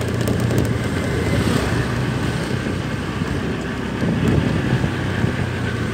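Motorcycle engine running steadily at a low hum, with wind rumbling on the microphone.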